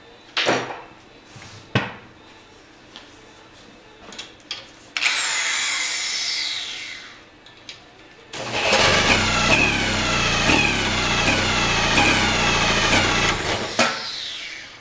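1937 Johnson KA-37 outboard motor being cranked over without catching. A short bout of cranking about five seconds in is followed by a longer, louder bout of about five seconds, with a whine that falls again and again. Two sharp knocks come first.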